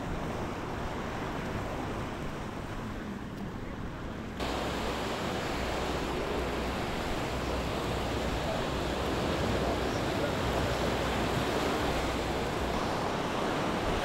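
Small waves washing up on a sandy beach, a steady hiss of surf with no distinct breaks. About four seconds in it turns abruptly louder and brighter, with low wind rumble on the microphone.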